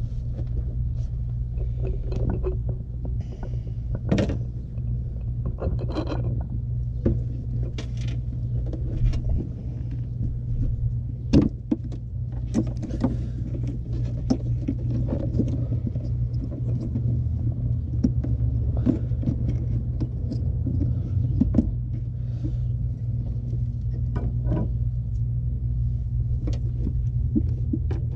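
Scattered clicks and light knocks from a ratcheting screwdriver and hands working the plastic air box housing, over a steady low rumble.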